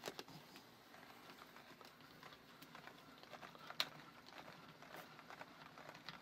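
Faint, irregular small clicks and rustling from a toy stuffing machine's plastic hand crank being turned slowly, with one sharper click about four seconds in.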